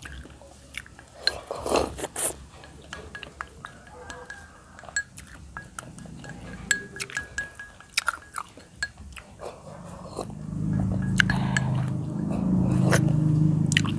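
Chopsticks clicking against a ceramic rice bowl, with chewing: someone eating rice. From about ten seconds in, a louder low hum comes up underneath.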